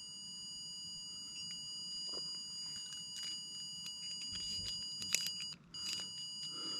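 Steady high-pitched electronic tone, several pure pitches held unchanged, with a few faint clicks; the tone cuts out for a moment about five and a half seconds in, then returns.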